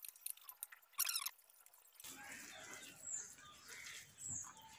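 A short clatter about a second in, then wet squishing of curd rice being mixed by hand on a banana leaf.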